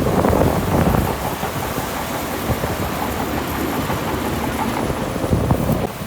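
Heavy diesel earthmoving machinery working: a steady engine rumble with continuous rattling and clattering, a little louder in the first second and again shortly before the end.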